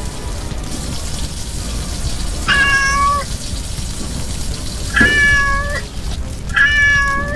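Kitten meowing three times, each a short pitched cry of under a second, over a steady low rumble.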